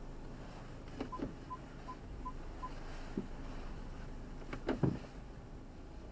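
Five short, evenly spaced electronic beeps from the car, all on one pitch, starting about a second in and following a click. A cluster of clicks with a louder knock comes near the end.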